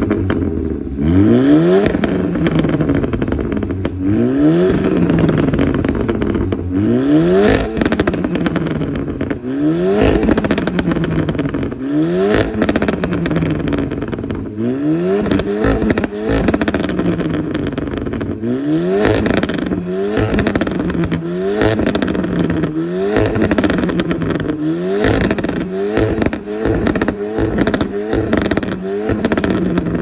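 Volkswagen Golf's exhaust as the parked engine is revved again and again, each rev rising sharply and falling back, with crackles and pops as it drops. The revs come about every two seconds at first and in quicker blips near the end.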